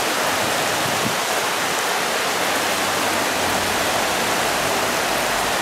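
Heavy downpour of rain, a steady, even hiss.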